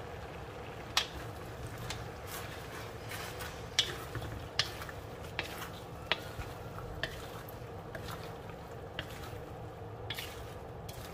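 Wooden spatula stirring and tossing shredded red cabbage and eggplant in an aluminium wok, with irregular sharp knocks and scrapes of the spatula against the metal over a steady low hum.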